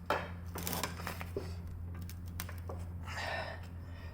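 Wrenches turning the nut of a threaded-rod press tool under heavy load, with irregular creaking and scraping as a rubber subframe bushing is forced into its tight press fit. A steady low hum runs underneath.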